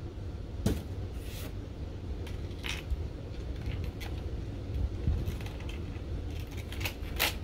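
Scattered small clicks and scratches of fingers untwisting wire twist ties from a hard plastic toy base, with one sharper click near the end.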